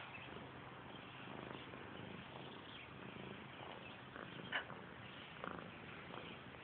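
Domestic cat purring faintly and steadily while rolling on its back, with a short, sharper sound about four and a half seconds in and a softer one a second later.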